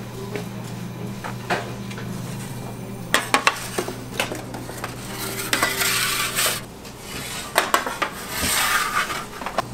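Square steel pizza pans clanking and scraping on a metal pizza peel and the oven deck as they are slid into a deck oven: scattered sharp metal knocks and two longer scrapes, over a steady low hum that fades out about two-thirds of the way through.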